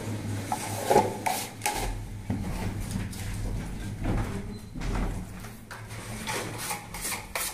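Plastering tools scraping and knocking: a float worked over wet gypsum plaster, then a series of irregular scrapes and taps as the tools are handled.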